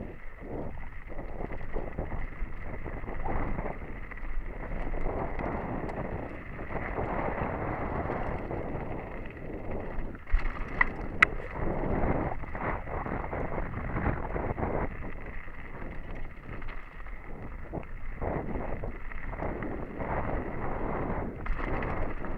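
Mountain bike ridden fast down a dirt singletrack, heard from a helmet-mounted camera: tyres rolling on dirt and loose stones and the bike rattling over bumps, with wind on the microphone. Two sharp clacks a little under halfway through.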